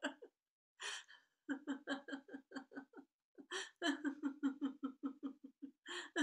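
A woman laughing in runs of quick, even 'ha-ha' pulses, about five a second, each run set off by a sharp, audible inhale: deliberate laughter-yoga laughing.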